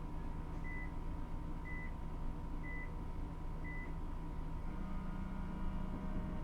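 Short high electronic beeps, one a second, four times, stopping about four seconds in, over a steady electrical hum.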